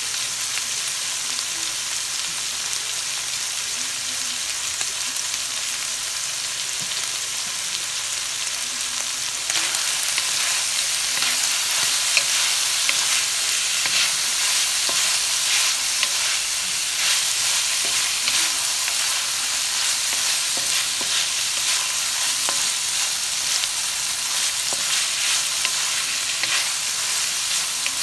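Beef and asparagus sizzling in a hot wok. About nine seconds in, the sizzle gets louder and a wooden spatula starts scraping and tossing the stir-fry, with many short scrapes against the pan.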